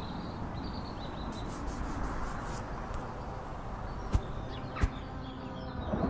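Open-air countryside ambience: a steady hiss of outdoor noise with faint bird chirps. Two short clicks come about four and five seconds in, and a low rumble begins to build near the end.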